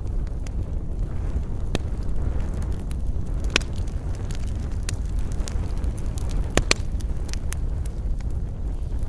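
Wood campfire burning with irregular sharp crackles and pops over a steady low rumble of flame, with a few louder pops about two, three and a half, and six and a half seconds in.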